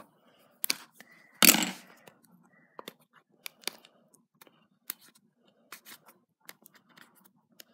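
Scissors snipping through the thin plastic shrink-wrap on a small cardboard box, then fingers picking and peeling at the wrap, with scattered crinkles and clicks. The loudest is a short crackle about a second and a half in.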